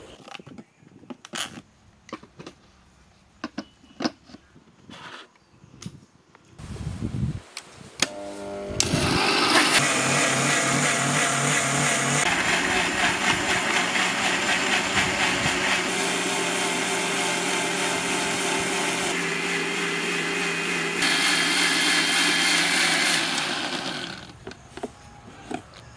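Electric mixer grinders blending milk and chocolate in steel jars: a few clicks and knocks of jars and lids being handled, then about nine seconds in the motors start and run loud and steady for about fifteen seconds, stepping up and down in level a few times before they stop near the end.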